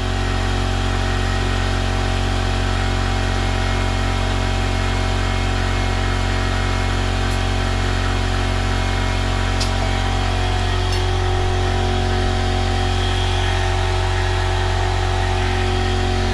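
Air compressor running steadily with an even motor hum while a freshly mounted motorcycle tire is inflated, its bead already seated.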